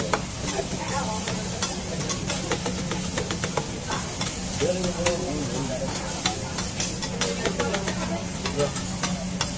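Fried rice sizzling on a flat-top griddle while metal spatulas chop, scrape and tap against the steel, making quick irregular clicks over a steady hiss.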